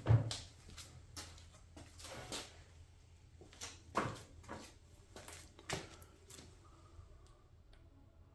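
Scattered clicks and knocks of tools and metal parts being handled during small-engine repair work. The first knock is the loudest, and smaller ones follow every second or two.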